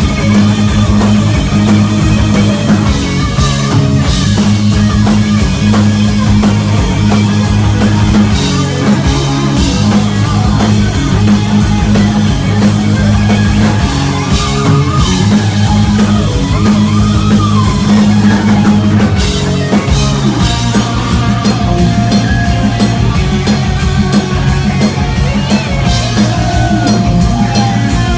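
Hard rock band playing live: distorted electric guitar lead over a pounding drum kit and sustained bass notes, with no singing.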